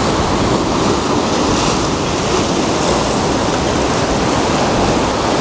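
Surf washing against a rocky shoreline, a steady rush of breaking water.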